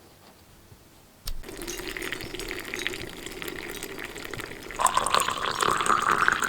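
Water poured into a cup, starting abruptly about a second in, with a tone that rises slowly in pitch as the cup fills toward the end.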